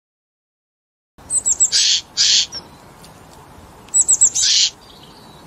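A songbird singing, starting about a second in. Each phrase is a few quick, high down-slurred notes followed by two harsh, buzzy notes, and the phrase comes twice, with a third beginning at the end.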